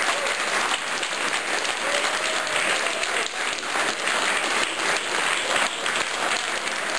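Audience applauding steadily, many hands clapping, with a few voices calling out over it.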